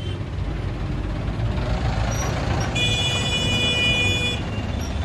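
Road traffic in a jam, a steady low rumble of engines. Around the middle a vehicle horn sounds once, held for about a second and a half.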